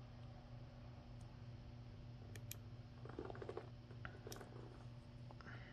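Faint clicks and light scraping of a hook pick working the pins inside a brass euro profile lock cylinder, a few sharp isolated clicks and two short flurries of rapid ticks, over a steady low hum.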